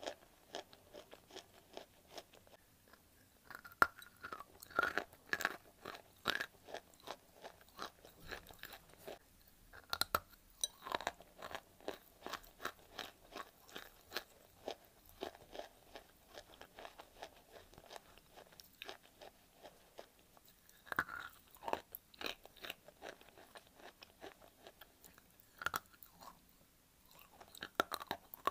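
Close-miked chewing and crunching of a dry lump of white clay: a steady run of small crisp crackles, with louder crunching bites several times.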